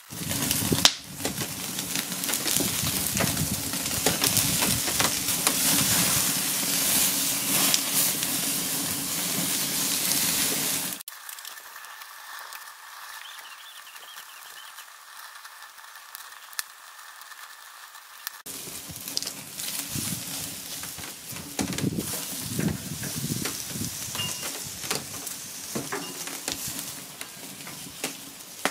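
Marinated beef steak sizzling on a hot grill grate over a wood fire, with many small pops and crackles. About eleven seconds in it cuts suddenly to a much quieter hiss for several seconds, then the louder sizzle with sharp pops returns.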